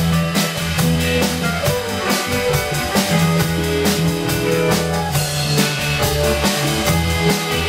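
Rock band playing an instrumental passage live: drum kit keeping a steady beat under bass guitar, electric guitar and keyboard, with no vocals.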